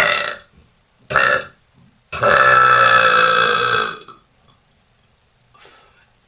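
A woman burping three times: two short burps about a second apart, then a long, loud burp lasting about two seconds.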